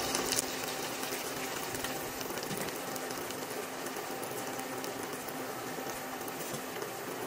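Ground beef, onions and sliced tomatoes sizzling in oil in a wok: a steady sizzle with fine crackles.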